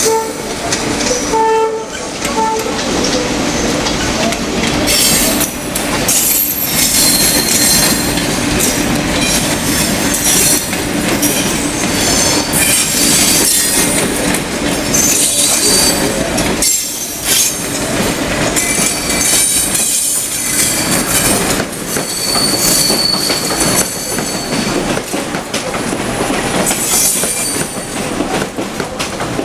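Electric commuter trains running through a rail yard: a continuous rumble of wheels on the rails and switches, with high-pitched wheel squeal coming and going several times. A couple of short horn beeps near the start.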